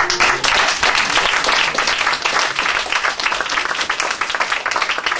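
Audience applauding, a loud, dense clapping that breaks out at the start and holds steady.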